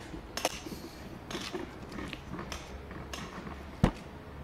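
Handling noise of a handheld camera being carried around: scattered clicks and knocks over a low hum, with one sharp knock about four seconds in.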